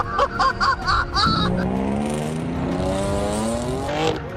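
Car engine revving up, its pitch rising steadily for about three seconds.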